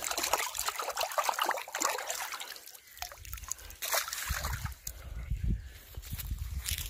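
Water splashing and sloshing as a small carp thrashes in a landing net in shallow water. The splashing is thick for the first couple of seconds, then comes in scattered bursts. A low rumble runs under the second half.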